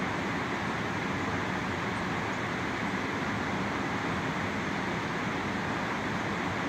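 Steady, unbroken rush of Huron River water spilling over the Peninsular dam.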